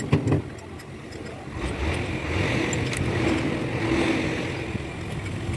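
A motor vehicle's engine running, swelling and then fading, with a few sharp clicks at the start.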